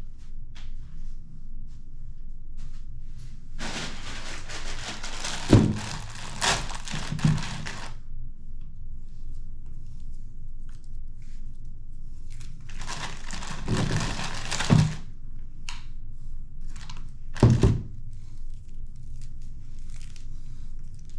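Hands handling things during a monitor setup: two spells of rustling and shuffling, each with dull thunks, then one sharp knock a few seconds later, over a faint low hum.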